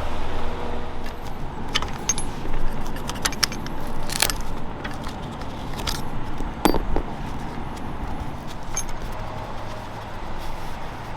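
Scattered clicks, taps and scrapes of hand work on a refrigerant line set's insulation, over a steady low background hum.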